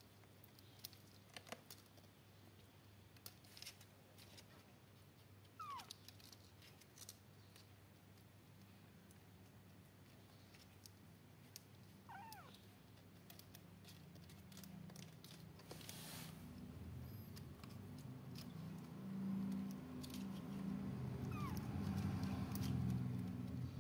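Four-week-old kittens mewing: three thin, high mews that fall in pitch, several seconds apart, over scattered light clicks and scratches as they move on the bedding. A low rumble builds through the second half and is the loudest sound near the end.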